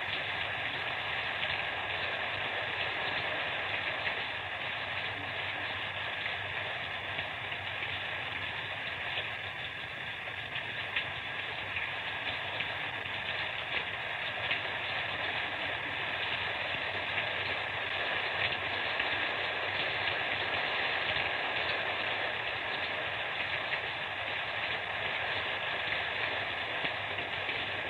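Steady rain falling: an even wash of noise with faint, scattered ticks of drops.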